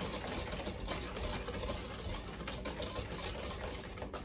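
Wire whisk beating a runny batter in a stainless steel mixing bowl: a fast, steady clicking and scraping of the wires against the metal.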